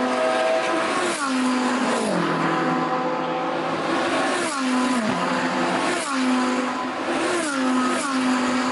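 Historic rally car engine running hard. Its pitch drops several times, a second or two apart, with the sound staying loud and steady between the drops.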